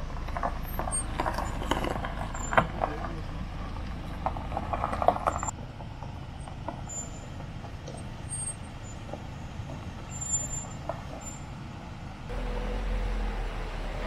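Camper van creeping down a gravel track: tyres crunching and popping over loose stones, over a low engine rumble, the crackle densest in the first five seconds. After that the crunching thins to occasional pops over a soft hiss, and near the end a steady low hum takes over.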